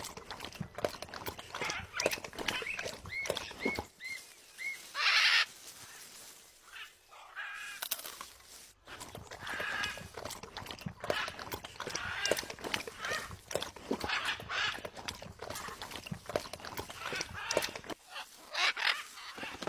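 Macaw calling with short chirps and a loud harsh squawk, over many sharp clicks and crunches of its beak working at a coconut.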